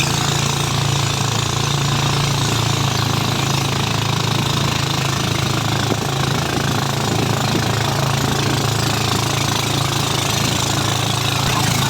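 An engine running steadily at a constant speed, close up, with a low even hum and a rattling clatter over it.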